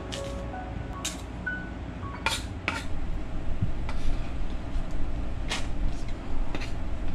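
Kitchen knife cutting a peeled root vegetable on a wooden cutting board: about six separate sharp knocks and clatters, some as slices are dropped into a plastic container.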